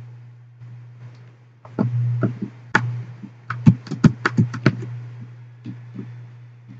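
A steady low hum, with a quick run of about a dozen sharp clicks and taps bunched between about two and five seconds in.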